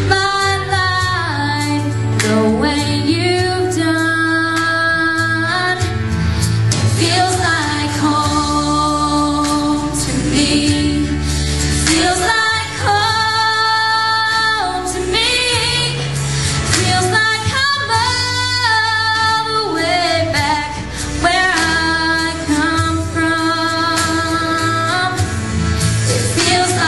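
A young woman singing solo into a handheld microphone, holding long notes, over a sustained low instrumental accompaniment.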